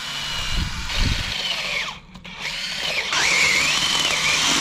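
Cordless drill turning a long auger bit down into compacted gravel ground, its motor whine rising and falling in pitch as the load changes. It breaks off briefly about halfway, then runs again, louder.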